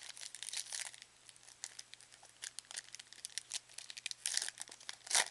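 A 2009 Leaf Certified football card pack's wrapper crinkling and tearing as it is pulled open by hand, in many irregular crackles, with the loudest rip near the end.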